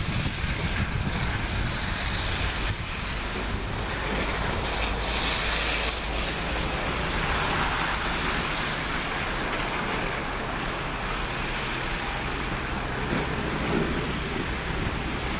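Wind buffeting the microphone: a steady rushing noise with a low rumble, swelling a little around the middle.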